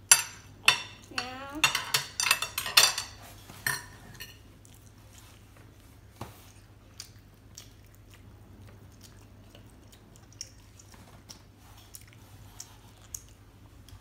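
Metal forks clinking against ceramic plates: a quick run of sharp clinks over the first four seconds or so, then only an occasional light tap.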